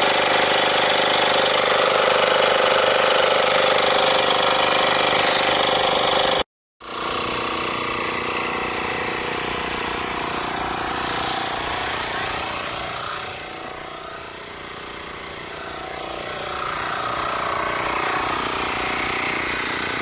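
Small 12-volt portable air compressor (tyre inflator) running steadily. The sound cuts off abruptly about six seconds in, then a similar steady motor sound resumes, dipping in level for a few seconds in the middle.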